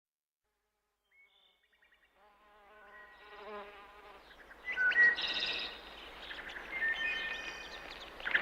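After a silent start, an insect buzz fades in about three seconds in, and from about five seconds birds chirp over a steady hiss, like a recorded forest soundscape.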